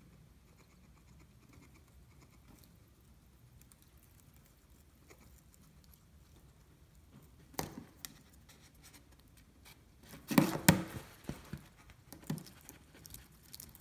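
Pet hedgehog chewing a crunchy dubia roach held in metal tweezers: faint at first, then a run of sharp crunches and clicks, loudest a little past ten seconds in.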